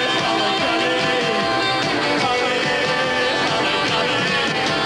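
Live rock band playing at full volume: distorted electric guitar with drums and a male singer singing into the microphone.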